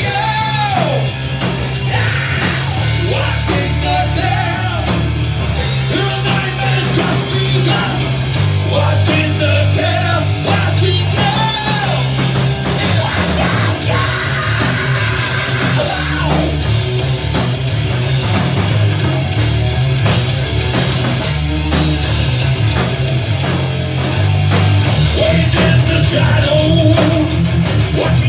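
Rock band playing live, with pounding drums, a heavy bass line and guitars, and a singer's voice over them.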